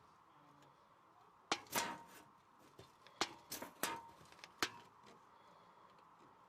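Half a dozen sharp clicks and taps, spaced irregularly from about a second and a half in to near five seconds, over a faint steady hiss.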